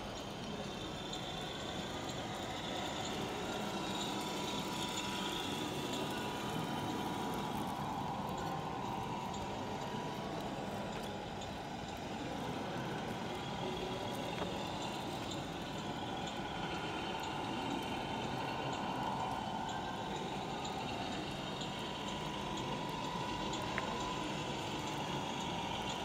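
Radio-controlled model semi-truck driving, a steady motor hum with a faint steady whine, under the hall's background noise.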